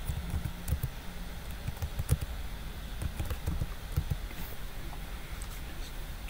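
Typing on a computer keyboard: a quick, irregular run of key clicks that stops a little past the middle, over a steady low hum.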